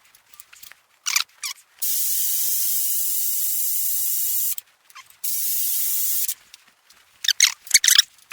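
Pressurised spray hissing in two long, steady blasts, the first nearly three seconds and the second just over a second, each starting and stopping sharply. A few short scrapes come before and after.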